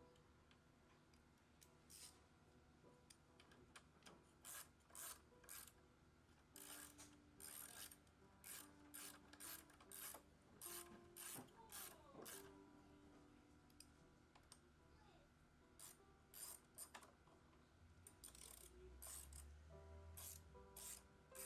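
Faint ratchet wrench with a 10 mm socket clicking in short runs as the brake caliper bolts are screwed back in, with a pause of a few seconds in the middle.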